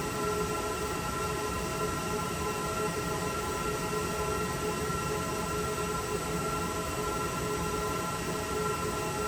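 Server room hum: the steady fan noise of data center equipment, a constant rush with several fixed whining tones on top, unchanging throughout.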